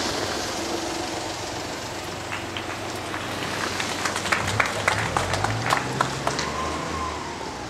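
Scattered hand-clapping from a small crowd: irregular claps start about two seconds in, thicken, and die away after about six seconds, over steady background noise.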